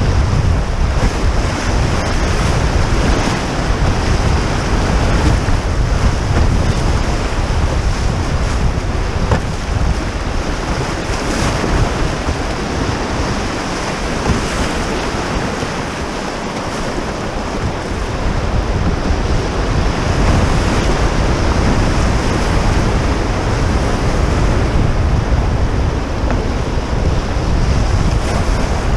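Whitewater rapids rushing and breaking around a canoe running a river at medium to high flow, with a heavy low rumble of wind on the microphone that eases briefly about halfway through.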